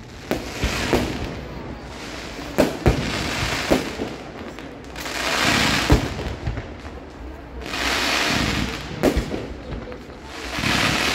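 Aerial fireworks display: sharp bangs of bursting shells, several in the first four seconds and a pair about nine seconds in, with three longer swells of dense crackling, about five seconds in, about eight seconds in and near the end.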